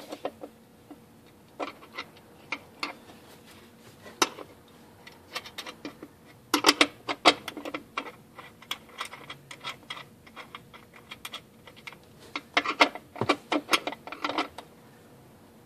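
Irregular metallic clicks and taps, with two quick clusters of many clicks, as the adjusting bolt and nut on a Singer 191D-20 industrial sewing machine's knee-lift linkage are worked to raise the presser foot higher. A faint steady hum runs underneath.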